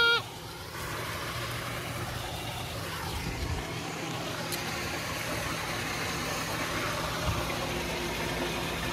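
Steady low machine hum under an even hiss, running without change: outdoor machinery idling.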